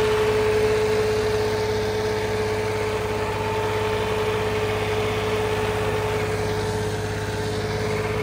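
Small John Deere tractor's diesel engine running steadily under load, with a steady whine over the engine note, as it pulls a disc harrow through loose sandy soil. The rear wheels are slipping, which the mechanic puts down to too little weight on the tractor.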